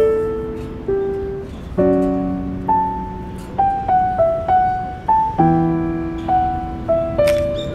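Background piano music: a slow melody of single notes, each struck and then fading, over held low chords.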